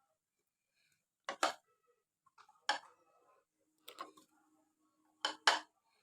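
Risen yeast dough being kneaded and pressed by hand: a few short, sharp slaps, some in quick pairs, spaced a second or so apart.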